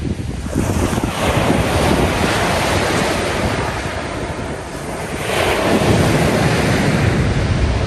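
Small Mediterranean waves breaking and washing up a pebbly shore, surging twice, about a second in and again about five seconds in. Wind buffets the microphone underneath.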